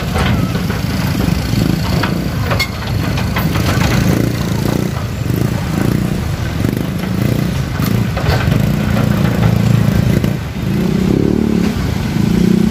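Busy road traffic, mostly motorcycles with other vehicles, engines running and revving close by as traffic moves across after a train has passed.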